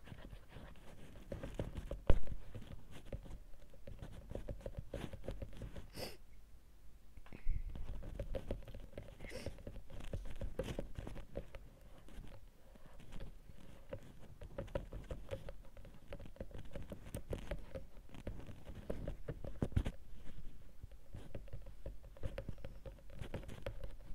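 Close-up crackling and scratching with rapid small clicks as a headphone cable and its plug are rubbed and tapped right against the microphone, an ASMR trigger. A sharper click stands out about two seconds in.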